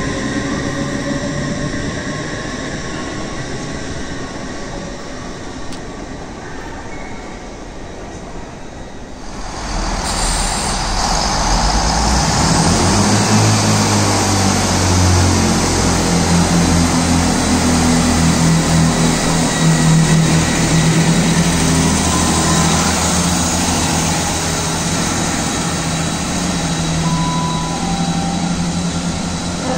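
A train moving through a railway station. About ten seconds in the sound swells sharply as a louder train comes through, with a steady low hum.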